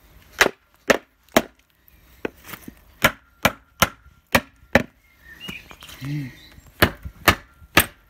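Rubber mallet striking the cast alloy sump of a 2.0 CDTI diesel engine to break its seal and free it once the bolts are out: about a dozen sharp blows, roughly two a second, with a short pause a little past halfway.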